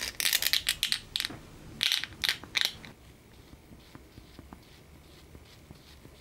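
Wooden stick stirring and scraping two-part epoxy on a clear plastic lid: a quick run of sticky scraping strokes for about three seconds, then fainter, sparser strokes.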